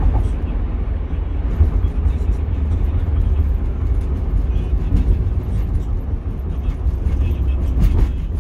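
Steady low rumble of road and engine noise from a moving road vehicle.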